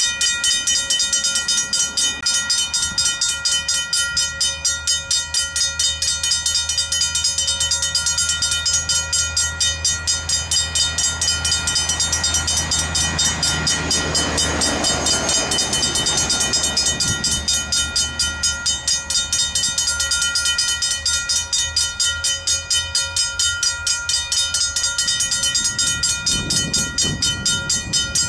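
Griswold mechanical level-crossing bells start up suddenly and ring on with rapid, even strokes, the crossing's warning that a train is approaching. About halfway through, a road truck passes with a rising and falling rush of noise.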